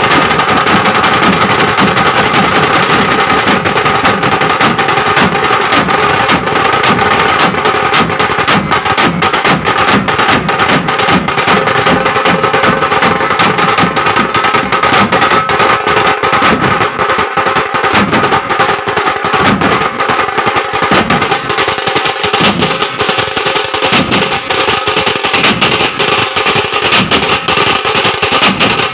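Band of drums beaten with sticks in a fast, dense rhythm, loud and close. In the second half a heavier low beat stands out about once a second.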